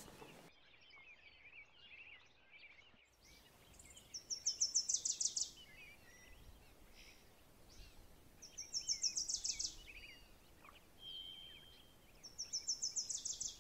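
Birdsong: a bird sings the same phrase three times, a quick run of about a dozen high notes falling in pitch and lasting about a second and a half, over faint chirping from other birds.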